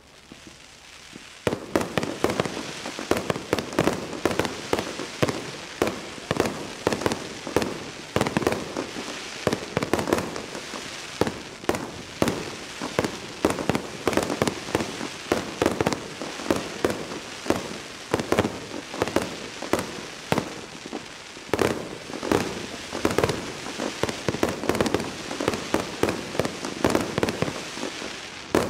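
Fireworks display: a dense, continuous run of sharp bangs and crackling from shells bursting one after another, starting about a second and a half in.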